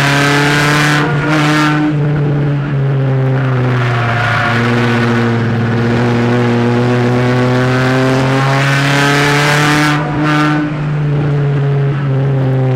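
Small race car's engine running hard, heard from inside its cabin, with the pitch dipping briefly about a second in and again near the end before climbing back.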